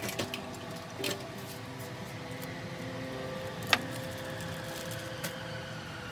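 Soft background music with sustained tones, broken by a few sharp clicks of small parts being handled. The loudest click comes a little under four seconds in.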